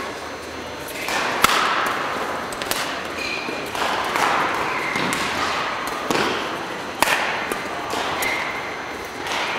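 Badminton rally: a series of sharp racket strikes on the shuttlecock, about one a second, with short squeaks of court shoes between them, echoing in a large sports hall.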